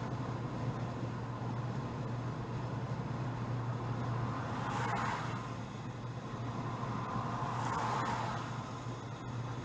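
Steady engine and road noise heard inside a moving car, with a low hum throughout and two brief swells of rushing noise, about five and eight seconds in.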